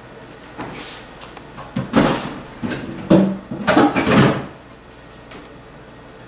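Kitchen handling clatter: a few short knocks and rustles between about two and four seconds in, like a cupboard or drawer being worked, over a faint steady hum.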